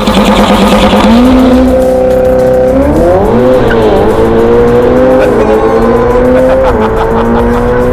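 Ferrari F8's twin-turbo V8 through a Novitec near-straight-pipe exhaust, running loud under hard acceleration. The revs jump about a second in, then climb with several short dips as it shifts up.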